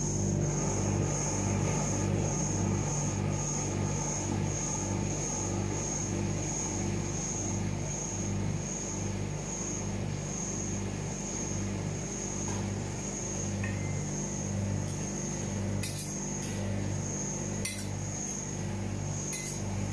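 Steady electric hum from the ice cream roll machine, with a regular throb. Near the end, metal spatulas clink a few times against the steel cold plate as the cream is spread.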